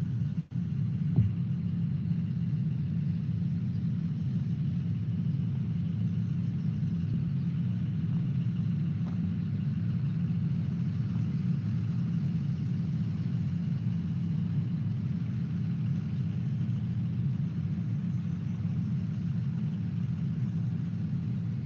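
Steady low rumble of road vehicles, unchanging throughout, with a faint hiss above it.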